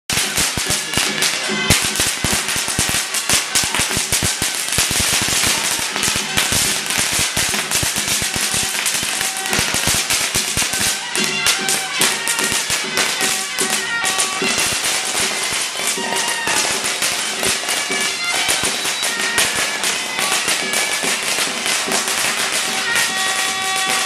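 A long string of firecrackers crackling densely and unevenly, over Taiwanese Taoist ritual music in which a suona (Chinese shawm) plays held, reedy notes.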